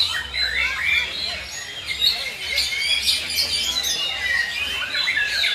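Black-tailed white-rumped shamas (murai batu) singing in a contest, with rapid phrases of whistles and chirps from several birds overlapping continuously.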